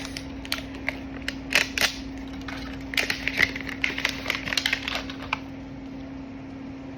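Plastic blind-bag toy packaging handled and worked at while being opened: a quick run of crinkles and sharp clicks that stops about five seconds in.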